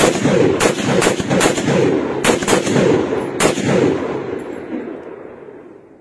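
Heckler & Koch G3 (CETME-pattern) 7.62×51mm battle rifle firing a string of about seven shots at uneven intervals. The shots fall in the first three and a half seconds, and each is followed by a heavy rolling echo that slowly dies away near the end.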